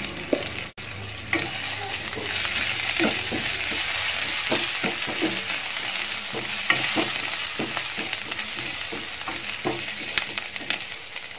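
Chilli powder, green chillies and ginger-garlic paste sizzling in hot oil in a non-stick pan, with a spatula stirring and scraping through the masala in repeated strokes.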